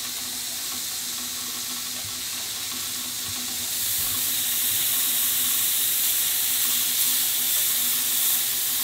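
Seasoned venison backstrap steaks searing on a hot grill grate over a bed of coals, a steady sizzle that grows louder about four seconds in.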